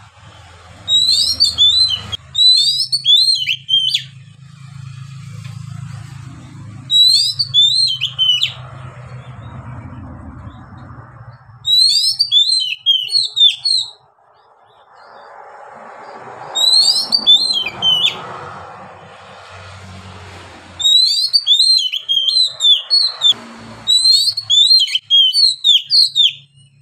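Oriental magpie-robin singing loudly in about seven bursts of rapid, high, falling whistled notes with short pauses between them, over a low steady hum.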